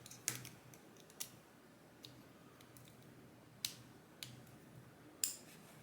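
Scattered sharp, faint metallic clicks, about six over a few seconds, as a circlip is worked off the plug of a Mottura C30 dimple lock with a small tool.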